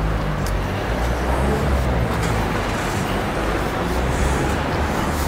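Street traffic: a motor vehicle running on the road, a steady low rumble with road noise.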